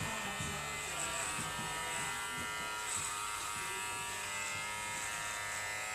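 Electric hair clippers buzzing steadily while shaving a head.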